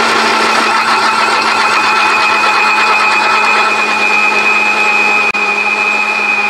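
Electric mixer grinder running steadily at full speed, its steel jar blending mint leaves with ice cubes, sugar and water.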